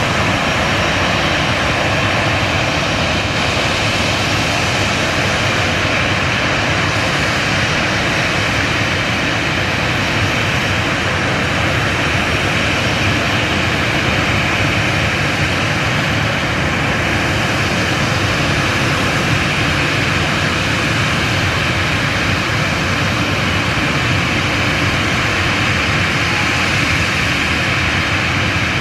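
Boeing 737 airliner's turbofan engines idling with a steady rushing noise and a faint high whine as the parked aircraft waits for its wheels to be chocked.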